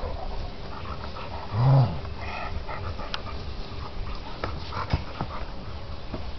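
Entlebucher Mountain Dog giving one short, low play growl about two seconds in while rolling on his back with a football, amid scuffling in the grass and a few soft knocks.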